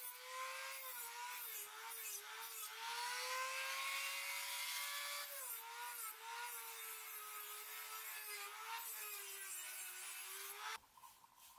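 Rotary tool with a small sanding drum running and sanding a wooden knife handle: a steady whine that dips and rises in pitch as the drum bears on the wood, with a rasping hiss of sanding. It stops shortly before the end.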